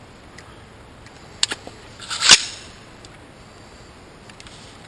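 Hands working on an AR-15 rifle: two quick light clicks, then about half a second later a louder short rushing, scraping noise that swells and dies away.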